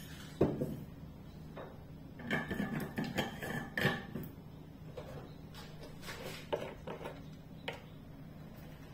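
Kitchen utensils and dishes clinking and knocking as they are handled at the pan: a knock shortly after the start, a busy run of clinks about two to four seconds in, then a few scattered taps.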